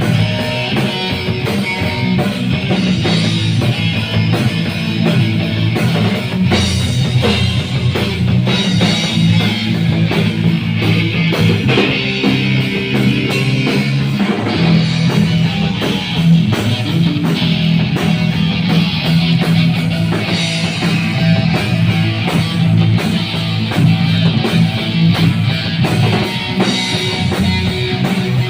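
Rock band playing: electric guitars over a drum kit, loud and continuous.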